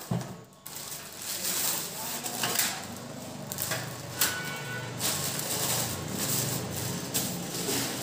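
Plastic packaging rustling and crinkling as ceiling fan blades are unwrapped and handled, with light knocks of the blades being moved.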